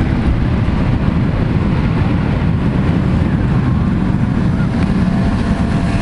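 Twin-engine jet airliner's engines at takeoff thrust, a loud steady roar, with the jet blast buffeting the microphone as wind.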